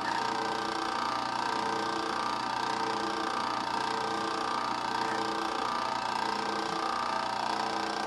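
Drill press motor running steadily at an even pitch, its 3/8-inch bit drilling into a wooden knife-handle block.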